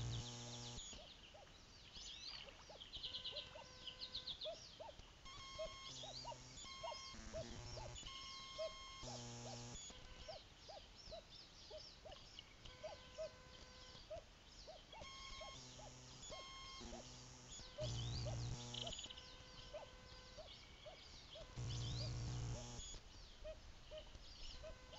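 A background chorus of songbirds chirping and trilling, cut into several times by short, low, buzzing hums about a second long; the buzzes are camera noise.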